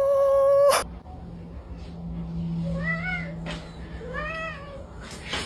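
A drawn-out shout of "No!" that breaks off within the first second, then a cat meows twice, each call rising and falling in pitch, about a second and a half apart, over a low steady hum.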